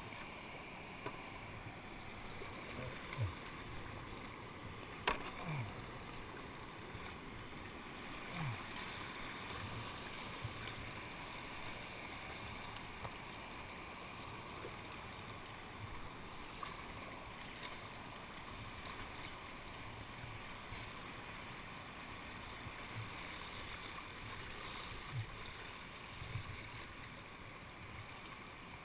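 Steady rush of creek water running around a kayak on moving current, with one sharp knock about five seconds in.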